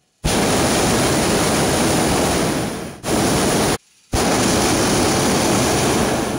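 Hot air balloon's propane burner firing in blasts of steady roar: a long blast of nearly three seconds, a short one, then another long one starting about four seconds in, each cutting in abruptly.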